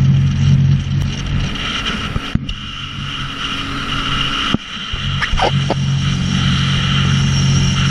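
Sea-Doo jet ski engine running at speed under water and wind noise. About two and a half seconds in, the engine sound drops away, then comes back up about two seconds later.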